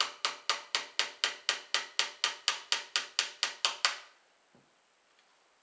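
A small steel tool tapping rapidly on a muzzle-loading gun barrel: about sixteen sharp metallic taps, evenly spaced at about four a second and each ringing briefly, stopping about four seconds in.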